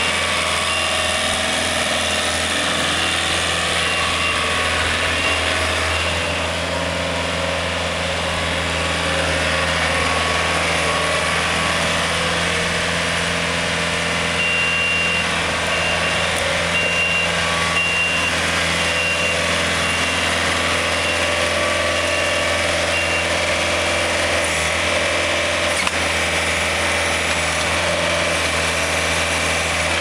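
John Deere 110 backhoe loader's diesel engine running steadily as the machine works its loader bucket and moves about. A high-pitched reversing alarm beeps in a regular pulse for the first few seconds and again through the middle.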